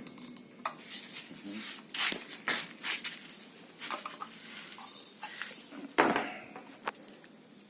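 Scattered light knocks and clicks of metal being handled, the loudest about six seconds in, just after the engine has gone quiet.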